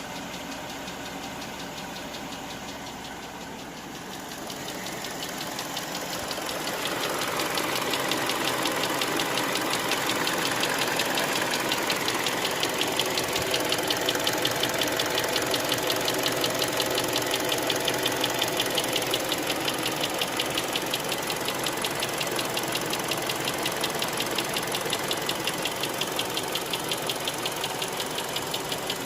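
Hyundai Creta 2.0-litre four-cylinder petrol engine idling with a fast, even knock, getting louder after the first few seconds. It is the knock that comes and goes on this warmed-up engine and whose cause the owner cannot find.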